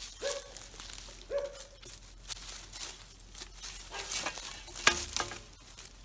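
Rustling and crackling of dry leaves, twigs and undergrowth as a metal detector's search coil is swept low through forest brush, with a sharper snap about five seconds in.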